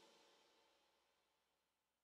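Near silence: the last of the background music fading away in the first second.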